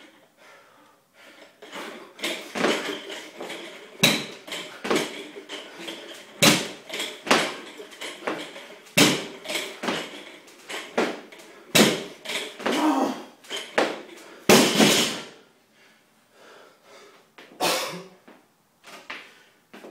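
Barbell loaded with bumper plates (185 lb) coming back down to the floor after each power clean, with heavy knocks about every two and a half seconds and plates clattering. The last knock is longer and rings on.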